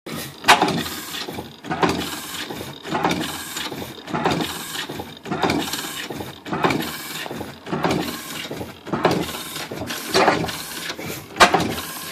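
15 hp Superior stationary oil-field engine running slowly, with a heavy beat about every second and a quarter, each beat carrying a mechanical clatter.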